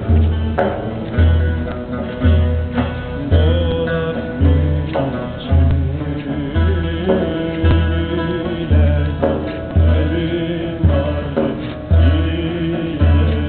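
Live Sufi ceremonial music: a large frame drum beating deep strokes roughly once a second, under a sung melody and a plucked string instrument.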